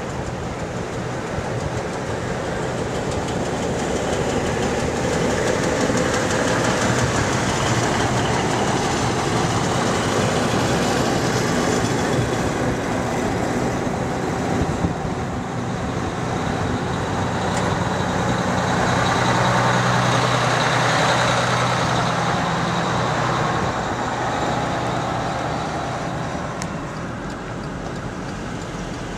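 Engine and road noise heard from inside a slow-moving vehicle's cab: a steady rumble with a low engine hum that grows louder in the middle and eases off near the end.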